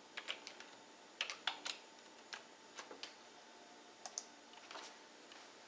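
Faint, irregular keystrokes on a computer keyboard typing out a word, about a dozen sharp clicks with short gaps between them.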